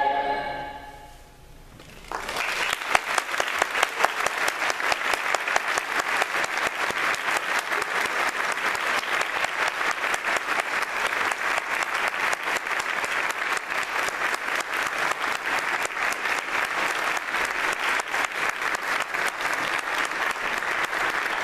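The last chord of a treble choir dies away, and about two seconds in the audience starts applauding, steady clapping that carries on.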